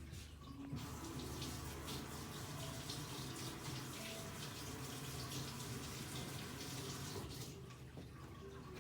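A steady rushing hiss, like running water, starts about a second in and stops near the end, over soft background music with held tones.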